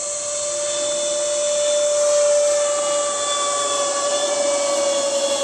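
Engines and propellers of a twin-engine radio-controlled Cessna 310 model droning steadily in flight as a high, whining tone. The whine is loudest about two seconds in and sinks slightly in pitch toward the end.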